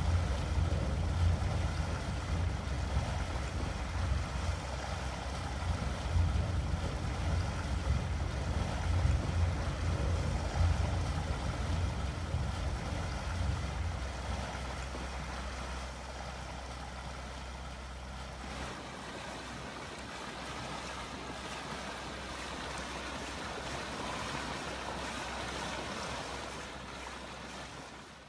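Ambient sound effects of water around a boat: a choppy low rumble under a steady wash of noise, the rumble dying away a little past the middle and leaving a softer wash that fades out at the end.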